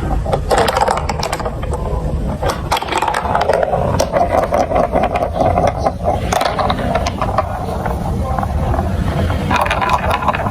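Marbles rolling and clattering through a plastic marble run, with a steady stream of sharp clicks and clacks.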